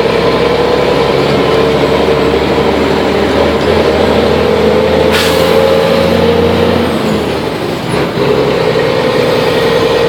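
Mercedes-Benz truck's diesel engine running under load, heard inside the cab at about 1,900 rpm, with a short hiss of air about five seconds in. Near eight seconds the engine note drops briefly, then picks up again.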